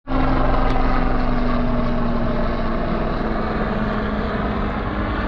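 Small propeller aircraft passing overhead, its engine giving a steady hum whose pitch sinks slowly as it goes by.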